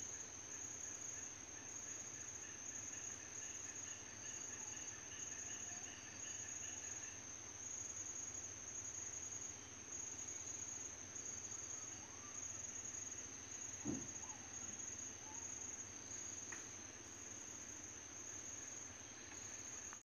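Steady high-pitched chorus of night insects, with a faint rapid pulsed call during the first several seconds. A single short thump about fourteen seconds in.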